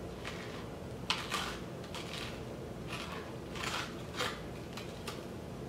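A metal spoon scraping seeds and stringy pulp out of a halved spaghetti squash, in a series of short, faint scrapes.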